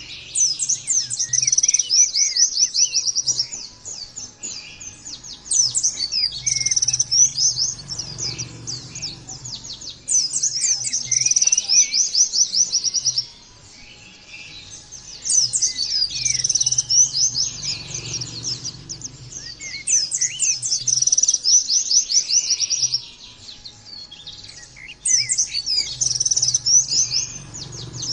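White-eye (pleci) singing in loud, high, rapid twittering phrases. There are about six bursts, each about three seconds long, with short pauses between them.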